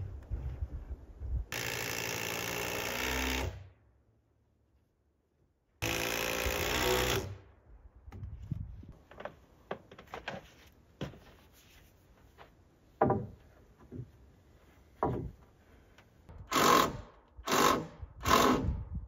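Hand power drill running in two bursts of about two seconds each, then scattered knocks and taps on wood, then three short bursts of the drill near the end.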